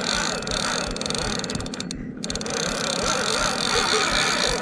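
Penn Battle II 5000 spinning reel being cranked, giving a rapid, steady clicking whir with a brief break about two seconds in.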